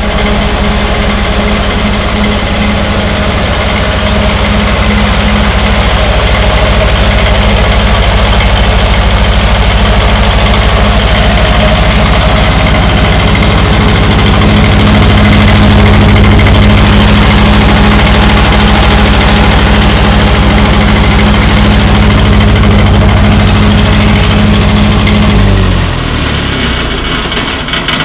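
Lincoln SA-200 welder's Continental F-163 four-cylinder gasoline engine running steadily through its muffler, freshly tuned with new spark plugs and a rebuilt carburettor, firing evenly. About three seconds before the end its speed drops and the sound falls away.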